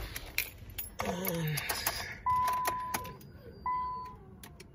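Keys rattling and clicking, then a 2005 Nissan Sentra's dashboard warning chime sounding twice, each tone starting sharply and fading away, with the ignition on before the engine is started.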